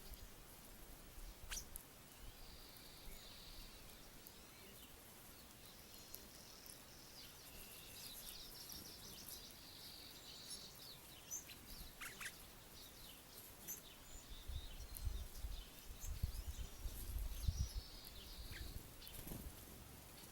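Small songbirds chirping and calling at a feeder, with a low rumble for a few seconds about three-quarters of the way through.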